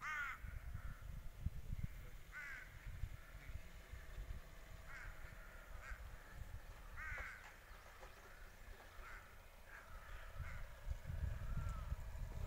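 Repeated short, harsh caws, like those of a crow, a second or two apart, over a low, uneven rumble.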